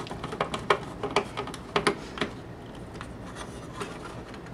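Light, irregular clicks and taps as a screw is driven by hand to fasten a sheet-metal plate into the center console, busiest in the first two seconds and sparser after.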